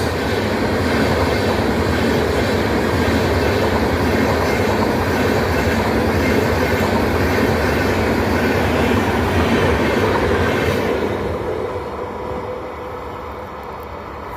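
Rajdhani Express passenger train running past on the track, its coaches rolling with a steady loud rumble that fades away over the last few seconds.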